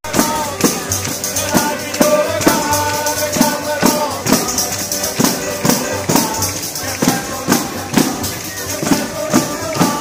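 Street band of large jingled frame drums and an accordion playing a lively folk tune, the drums beating a steady rhythm a little over twice a second under the held accordion notes.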